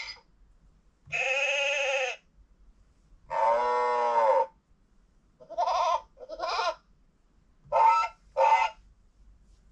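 Recorded animal sound effects from a LeapFrog 100 Animals electronic book, played through its small speaker one after another: two long calls, then two pairs of short calls, with short pauses between.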